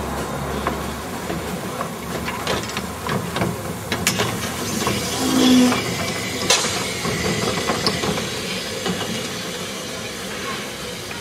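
Narrow-gauge Beyer Peacock 0-6-0 tank locomotive No. 822 'The Earl' moving slowly past with steam hissing, and a run of metallic clanks and knocks from its running gear and the train, the sharpest a little past halfway.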